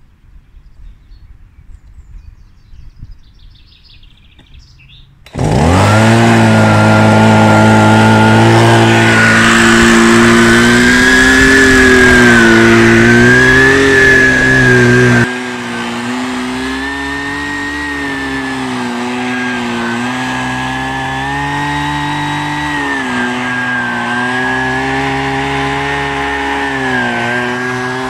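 Husqvarna 125BVX bug vac (a petrol leaf-blower vacuum) with its small two-stroke engine starting about five seconds in and then running steadily, its pitch wavering slightly as it vacuums a lawn. It becomes noticeably quieter about ten seconds after starting and keeps running.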